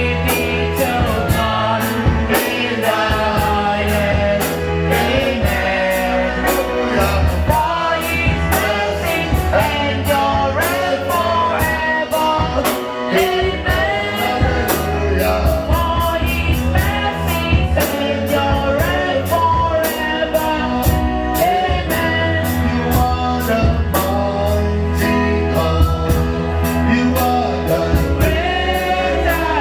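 Gospel worship music: singing over a band with a steady beat and a constant bass line.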